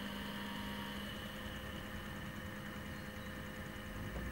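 Webasto fuel-burning coolant pre-heater starting up under a Range Rover Sport TDV8 bonnet, its burner not yet lit: a steady electric motor hum made of several constant tones. One higher tone stops about a second in.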